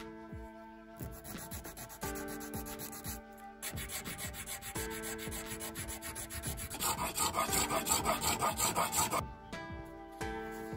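Quick, even back-and-forth rubbing strokes of an abrasive tool shaping the edge of a white plastic blade. The strokes grow louder about seven seconds in and stop about a second before the end.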